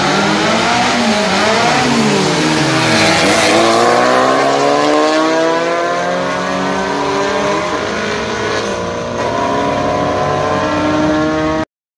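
Air-cooled flat-four engines of Volkswagen Beetle drag racers revving hard as they launch and accelerate down the strip, the pitch climbing, dropping at each gear change and climbing again. The sound cuts off abruptly near the end.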